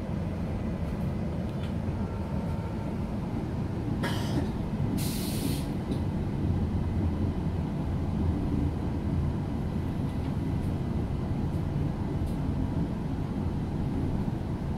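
Inside a Queensland Rail electric suburban train carriage: a steady low rumble, with a short sharp hiss about five seconds in.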